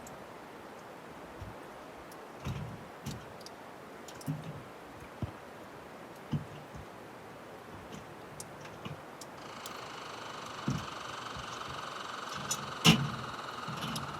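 A steady hiss with scattered short knocks and clicks. About two-thirds of the way in, a steady high tone made of several pitches comes in and holds.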